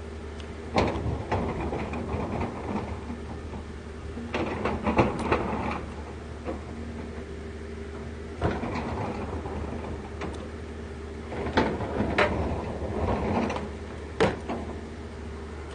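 Scattered short clicks and knocks of utensils and tableware being handled at an outdoor table during a meal, over a steady low hum.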